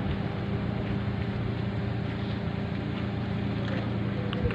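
A vehicle engine idling with a steady low drone, with some wind on the microphone.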